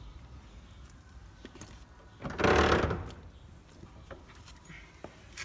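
A socket tool on a 15 mm seat-mounting bolt: one short mechanical burst lasting under a second, about two seconds in, with a few faint clicks around it.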